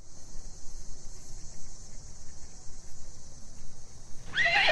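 Crickets chirring steadily. Near the end a horse whinnies loudly, its call falling in pitch.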